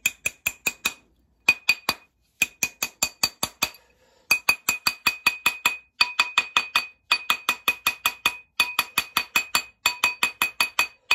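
A mallet tapping quickly on a soldered sterling silver ring held on a steel ring mandrel, about six strikes a second in runs with short pauses, each blow leaving the mandrel ringing with a clear metallic tone. The ring is being reshaped round after soldering.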